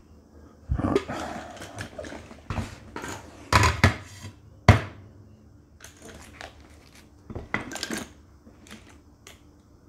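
Knocks and clatters as a glass bathroom scale is set down on a hard bench and a tool bag loaded with metal hand tools is handled, the tools rattling. About a dozen separate knocks; the sharpest comes about halfway through.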